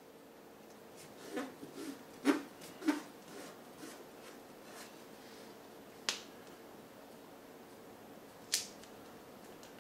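Hands working duct-tape strips on a resin-printer vat's FEP film: scattered light clicks and taps, a cluster of them between about one and three seconds in, then single sharp clicks around six and eight and a half seconds in. A faint steady hum runs underneath.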